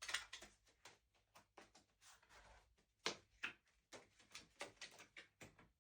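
Playing cards being handled: an irregular run of short flicks, snaps and brief rustles, with the sharpest ones near the start and about three seconds in.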